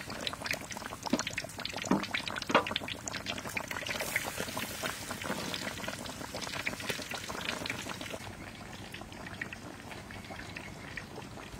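Chicken pieces deep-frying in hot oil, sizzling with a dense crackle of small pops that grows quieter about two-thirds of the way in.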